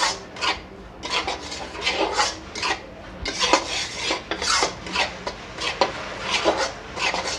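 Metal spatula scraping and stirring a thick gram-flour-and-ghee mixture against the bottom and sides of a metal kadhai, in repeated strokes about two or three a second, as the besan is slowly roasted.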